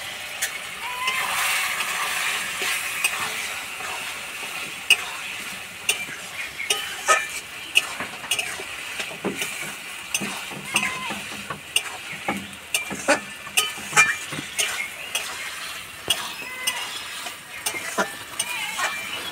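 Flat metal spatula stirring and scraping a thick curry around a metal kadai, with many sharp clicks and scrapes of metal on metal. Under it the curry sizzles, most strongly in the first few seconds.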